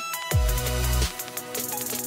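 Background electronic music with a beat: a deep bass note slides down in pitch and holds, under steady hi-hat ticks and sustained synth tones.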